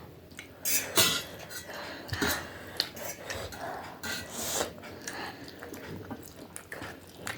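Cutlery clinking and scraping against a dish while eating noodles, in scattered short clicks and brief scrapes.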